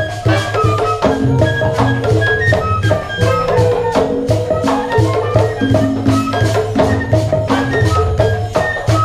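Live large-ensemble music: batá drums keep a driving, repeating rhythm under sustained wind and string lines from saxophone, bassoon, flute and violins.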